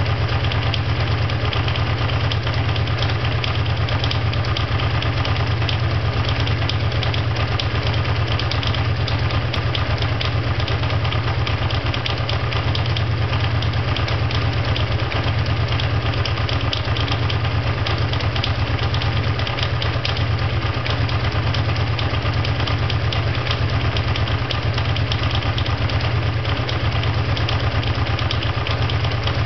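Honda VT500FT Ascot's V-twin engine idling at a steady speed with a fast, even pulse of ticks. The owner cannot place the noise and calls it a mystery sound.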